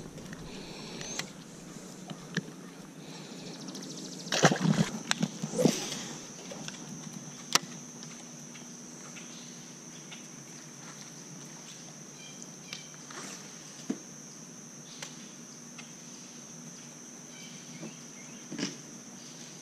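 Handling noise of fishing tackle over a steady outdoor background with a constant high-pitched drone: a cluster of knocks and rustles about four to six seconds in, then a few single sharp clicks.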